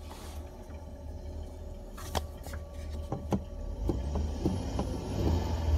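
Static hiss and buzz with a low hum from car door speakers run by an added four-channel amplifier, heard close up, with a few faint clicks and growing slightly louder. The noise comes from improper grounding of the head unit and stops when a ground wire is pressed to the radio's metal case.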